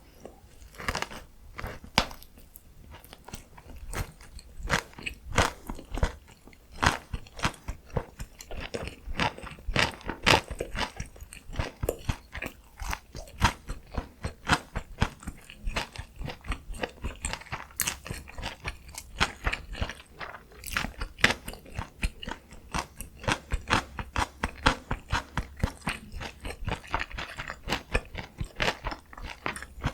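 Close-miked eating: a person biting and chewing food, with many quick wet clicks and smacks, several a second, throughout.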